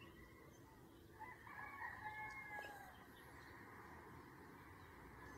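A rooster crowing once, faint, starting a little over a second in and lasting under two seconds, over quiet outdoor background.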